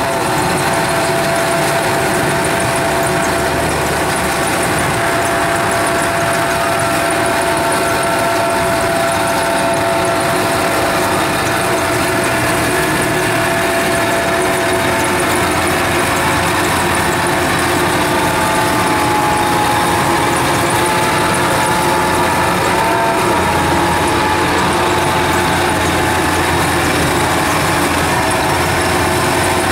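Kubota rice combine harvester's diesel engine running steadily and continuously. The machine is under load, its crawler tracks working through deep, sticky mud as it tries to get free.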